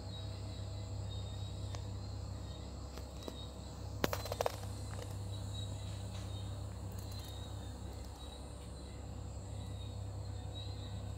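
Night-time outdoor ambience: insects chirping steadily over a constant low hum, with a short cluster of sharp clicks about four seconds in.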